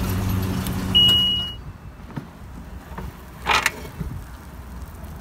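A steady low hum from the parked SUV, with a single high electronic beep about a second in lasting about half a second. The hum then cuts off, and a short noisy rasp follows near the middle.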